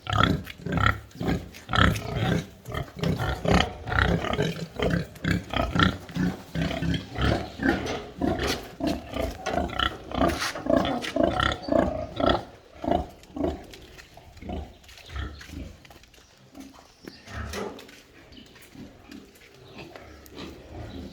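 Pigs grunting: a rapid, dense run of short calls, thinning out and getting quieter after about two-thirds of the way through.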